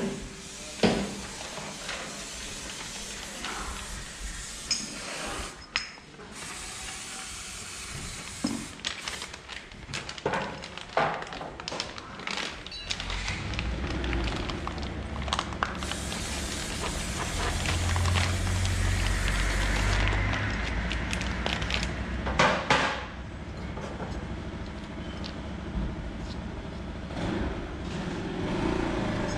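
Metal tools and scooter variator parts clinking and knocking as they are handled on a workbench, over a steady hiss. About halfway through a low rumble builds up and holds.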